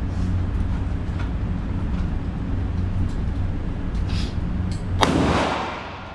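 A single pistol shot about five seconds in, sharp, with a long echoing tail off the concrete range walls. It is set over a steady low hum.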